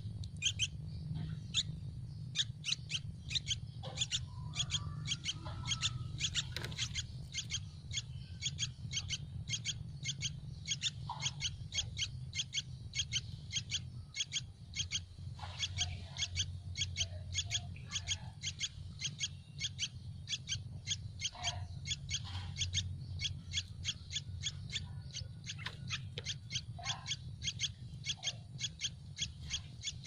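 Yellow-vented bulbul nestlings begging for food with short, high chirps repeated evenly about three times a second, mixed with a few lower calls. A steady low hum runs underneath.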